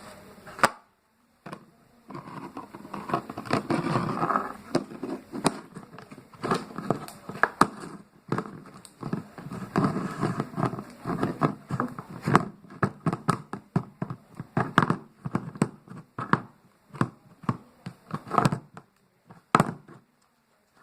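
Slime being squeezed and stretched by hand, with irregular wet crackling and sharp pops as air pockets burst.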